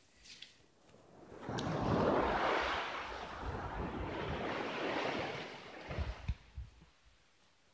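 Small sea waves breaking and washing up a sandy beach: a rush of surf that swells about a second and a half in, surges twice, and dies away near the end, with a few soft knocks just before it fades.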